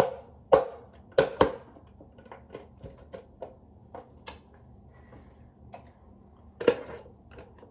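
Hand knocking and tapping an upturned plastic boba cup to shake the last pieces of coconut jelly out into a bowl. Four sharp knocks come in the first second and a half and another comes near the end, with lighter ticks between.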